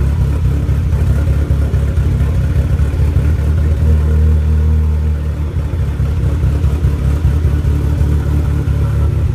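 Turbocharged car engine fitted with 2200cc injectors, idling after a cold start on pump gas, with a rough, uneven idle. Base timing is not yet set, and the owner says an exhaust manifold that needs tightening can be heard. The idle evens out for a couple of seconds about halfway through.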